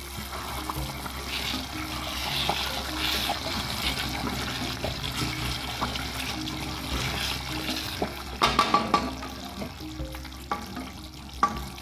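Background music with a steady melody over a noisy hiss, and a cluster of sharp clicks about two-thirds of the way through.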